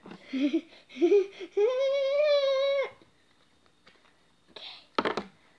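A boy's voice: two short strained sounds, then a long held high-pitched "mmm" hum, a sound of disgust while eating an insect larva. A brief rustle and a sharp knock near the end.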